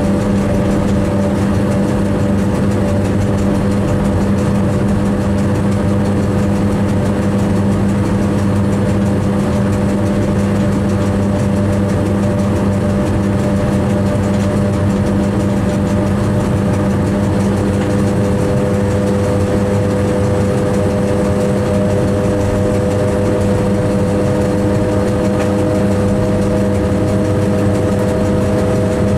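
Running noise inside the driver's cab of a moving electric train: a steady hum made of several held tones over a continuous rumble. A couple of the higher tones shift slightly in pitch about two-thirds of the way through.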